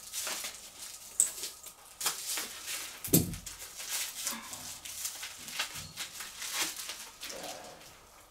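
Scissors snipping and packaging rustling as a wrapped item is cut open and handled. There is a sharp click about a second in and a heavier thump about three seconds in.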